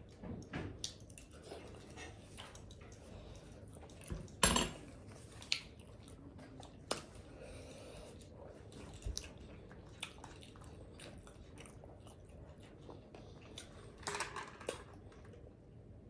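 Close-up eating sounds: chewing and biting into fried chicken wings and cabbage, with scattered crunches and mouth clicks. The loudest crunch or clatter comes about four and a half seconds in, with another cluster of bites near the end.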